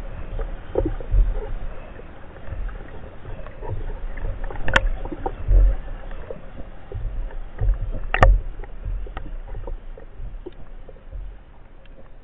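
Muffled underwater noise picked up by a camera in a waterproof housing mounted on a speargun: a low rumble with soft thumps from water movement as the spearfisher swims, scattered small ticks, and two sharp clicks, one about five seconds in and one about eight seconds in.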